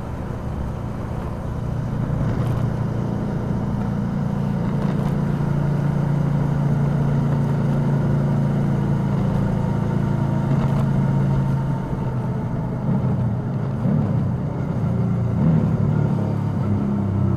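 Suzuki V-Strom DL650's V-twin engine running under way at a steady pull. It picks up about two seconds in, holds steady, and eases off and varies after about twelve seconds.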